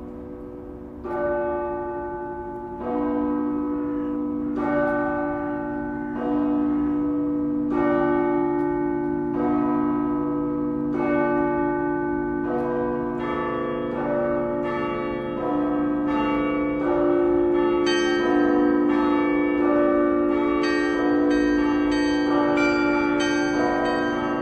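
Russian Orthodox church bells rung by hand in a zvon: the deep bells hum steadily under repeated strikes of the middle bells. The strikes come every second or two at first, then grow denser, with high small bells joining thickly toward the end.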